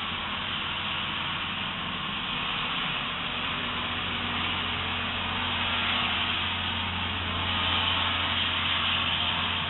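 Steady hiss with a low, even hum underneath, getting slightly louder about five seconds in, as picked up by a trail camera's microphone.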